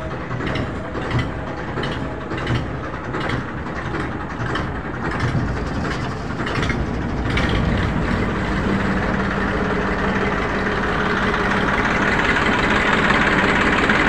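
Tafe 45 DI tractor's diesel engine running, with irregular knocks over it in the first half. About halfway through the engine sound turns steadier and grows louder.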